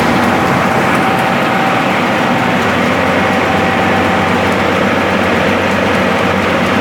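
Rice milling machine running steadily: a loud, continuous mechanical drone with a low hum beneath a dense rushing noise.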